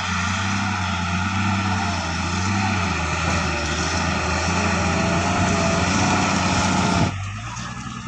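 Heavy truck engine running hard and steady under load, with a thin wavering whine above it. The sound drops suddenly about seven seconds in.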